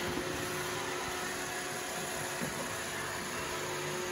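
iRobot Roomba 614 robot vacuum running on a hardwood floor: the steady whir of its suction motor and spinning brushes, with a constant motor whine.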